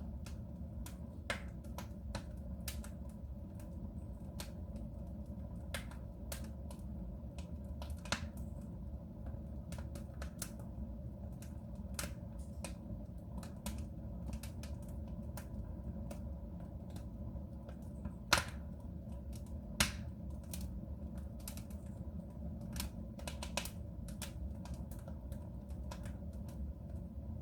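Wood fire burning in a soapstone stove: irregular crackles and pops over a steady low rumble, with two sharper, louder pops a little past the middle.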